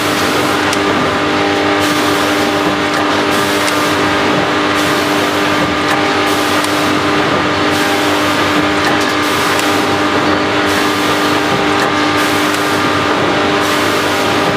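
Automatic food packaging machine running: a steady mechanical hum, with a high hiss that cuts in and out every second or two.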